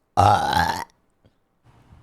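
A person's burp picked up close on a microphone: one burp, under a second long, with its pitch rising slightly.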